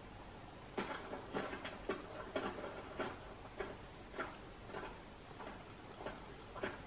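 Faint footsteps on a hard floor, one short step about every 0.6 s, walking steadily.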